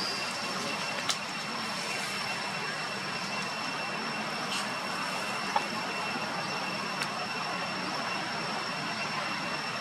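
Steady outdoor background rush with a thin, high, unbroken whine over it, and a few faint single clicks about a second in and twice more past the middle.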